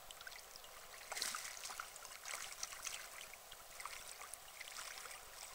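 Water splashing and sloshing at the surface as a hooked fish thrashes close to the bank while it is played towards the net, a run of small crackling splashes starting about a second in.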